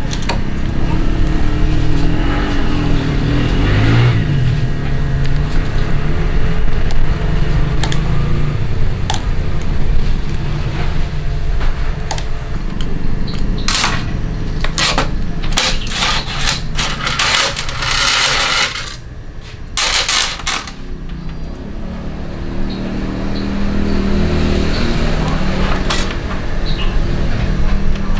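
Motorcycle repair work with hand tools: a run of sharp metal clicks and knocks over a steady low rumble, with a short hiss about two-thirds of the way through.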